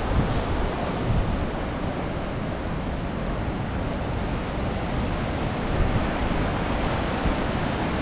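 Steady rushing of a large waterfall, with wind buffeting the microphone.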